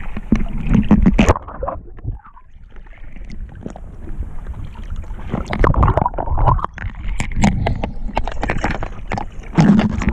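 Wind buffeting a small action camera's microphone over open water, with water sloshing against a boat and scattered short knocks and clicks.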